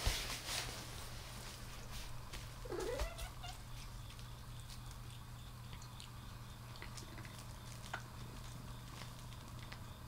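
A domestic cat gives one short meow about three seconds in, its pitch dipping and then rising, after a brief rustling noise at the start; faint clicks and a steady low hum sit underneath.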